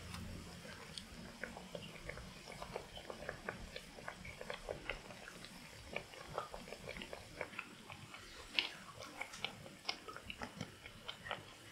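Chicken nuggets deep-frying in hot oil in a pan, with an irregular, continuous crackling and popping of the oil.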